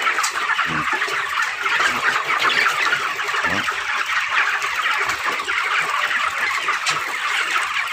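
A large flock of 25-day-old broiler chickens calling together: a dense, steady chatter of many overlapping peeps and clucks.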